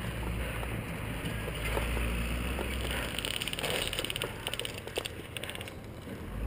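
Low rumble of wind and movement on the microphone as a player walks a dirt trail, with footsteps and scattered clicks of gear. About three seconds in comes a quick, evenly spaced rattling run of clicks lasting about a second and a half.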